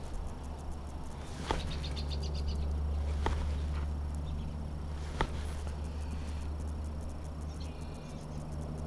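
Three sharp clicks of hands handling a spinning reel and a soft-plastic worm rig, over a steady low rumble. A quick ticking bird trill sounds about two seconds in and a short bird call near the end.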